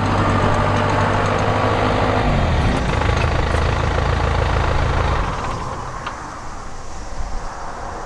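Combine harvester engine running steadily. About two seconds in its note drops lower, and about five seconds in it fades to a quieter background.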